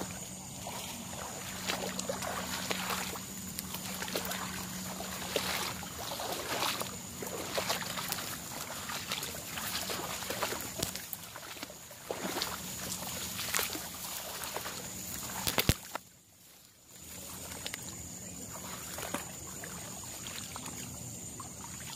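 Dense reed and grass stalks swishing and rustling against the camera and clothing as people push through them on foot, in quick irregular brushes. There is a sharp knock about fifteen seconds in, then the sound drops away for about a second.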